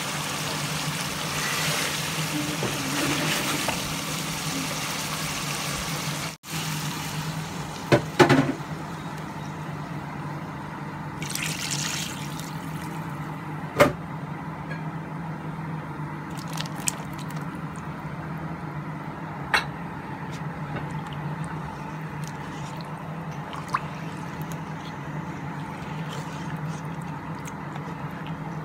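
Chicken masala sizzling in a pot while it is stirred with a plastic spoon; after a cut, the curry bubbles more quietly over a steady low hum, with a short splash of poured water and a few sharp knocks of the spoon against the pot.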